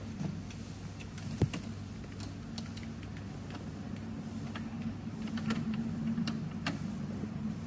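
Spanner tightening a new shower tap onto its threaded pipe fitting: scattered light metallic clicks and ticks, with one sharper knock about a second and a half in.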